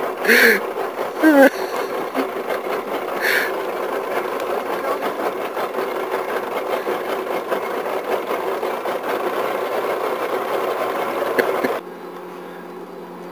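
A boat motor runs with a steady hum. About twelve seconds in, the sound drops abruptly to a quieter, steady hum.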